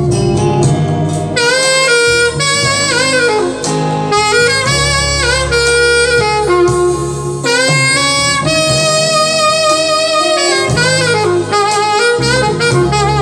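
Saxophone playing a slow, expressive melody with sliding and wavering notes, over a sustained low accompaniment.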